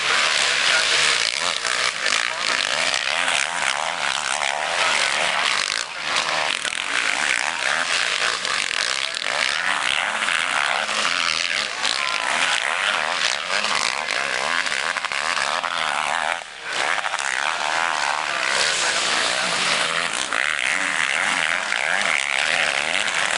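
Motocross bikes' engines revving hard as the riders race through a dirt corner, the pitch rising and falling as they throttle on and off one after another.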